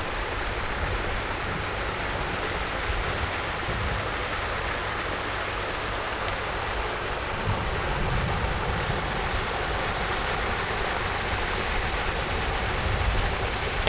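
Steady rushing outdoor noise with wind buffeting the microphone in low, fluttering rumbles, growing a little louder in the second half.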